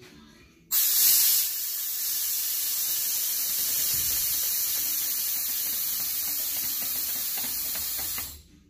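Compressed air hissing through the air hose and valve of a 1964 International Loadstar's air-ride suspension as the air bags are cycled. The hiss starts suddenly, loudest for the first moment, holds steady for about seven and a half seconds, then cuts off near the end.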